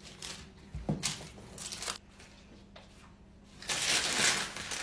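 Wooden rolling pin rolling cookie dough on baking paper, with a low knock about a second in and scattered rustles. About three and a half seconds in, the baking paper crinkles loudly for about a second as it is handled.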